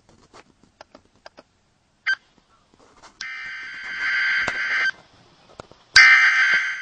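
Emergency Alert System SAME header data bursts: two harsh, buzzing digital tone bursts of under two seconds each, about a second apart, after a few faint clicks and a short blip.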